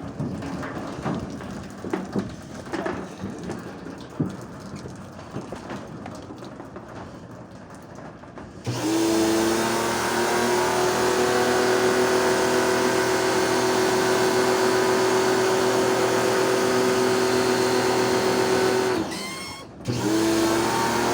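Scattered knocks and clatter, then about nine seconds in an electric pressure washer's motor starts abruptly and runs with a steady hum. Near the end it cuts out for under a second and starts up again.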